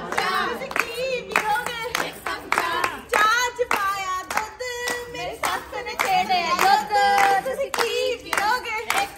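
Women singing a Punjabi boliyan folk song together while clapping their hands to a steady beat.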